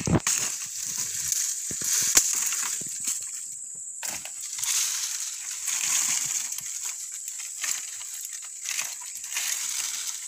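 Dry branches and leaves rustling and crackling as brush is pulled and cleared by hand, in uneven swells. There are a few sharp snaps or knocks at the very start and about two seconds in, over a steady high hiss.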